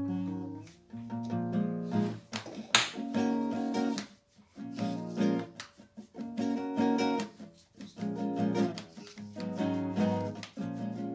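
Background music: acoustic guitar strumming chords in a steady rhythm, with one sharp percussive hit about three seconds in.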